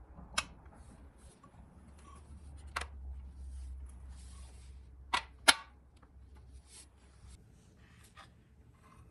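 Workbench handling noises as small parts and tools are worked on: four sharp clicks or taps, two of them close together about five seconds in, between light scraping and rustling.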